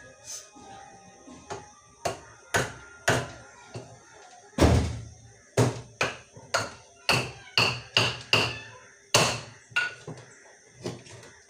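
Kitchen knife chopping through a pumpkin, a series of sharp knocks as the blade hits the surface beneath. The chops come irregularly and faster through the middle, with the loudest strikes about halfway through and near the end.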